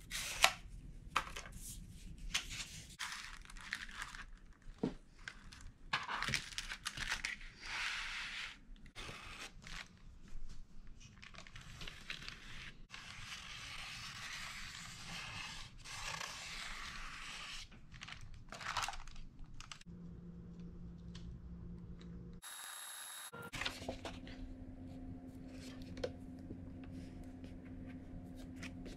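Plastic shelf liner sheet crinkling and rustling in irregular bursts as it is unrolled and handled, with a felt-tip marker scratching across it partway through.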